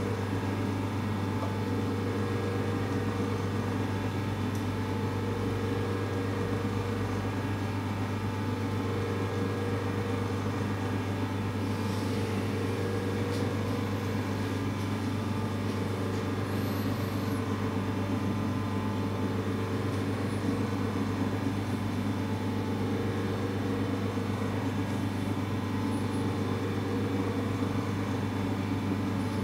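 Steady hum of an electric motor left running, unchanging throughout, with a few faint clicks about halfway through.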